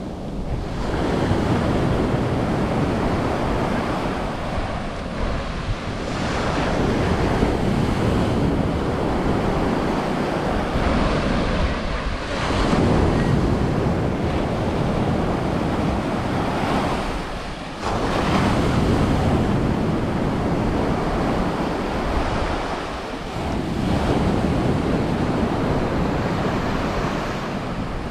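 Waves breaking on a beach, the surf swelling and falling back about every five to six seconds, with wind on the microphone.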